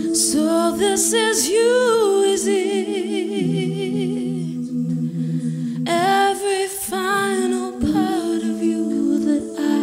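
A woman singing a cappella: a lead voice with wide vibrato over a bed of steady, layered vocal notes held underneath, the kind built up on a loop station. The lead line drops out for a second or so around the middle, then comes back in while the held harmonies go on.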